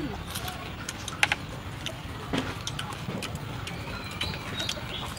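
Crisp fried grasshoppers crunching as they are chewed and snapped apart by hand: scattered sharp clicks and cracks, the loudest about a second in.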